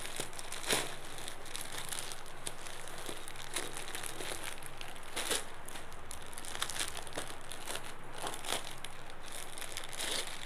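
Clear plastic packets of folded suits crinkling and crackling as hands handle them and open one, in irregular bursts. The sharpest crackles come about a second in and again about five seconds in.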